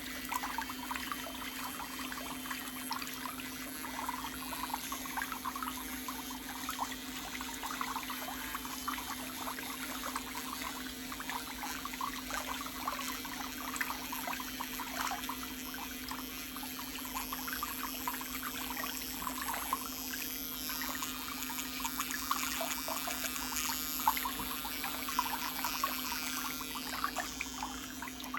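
Water trickling and bubbling continuously, with a steady low hum underneath.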